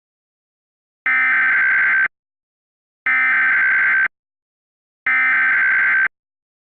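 Emergency Alert System SAME digital header: three identical one-second bursts of shrill, buzzing data tones, a second apart, encoding the alert before the message is read.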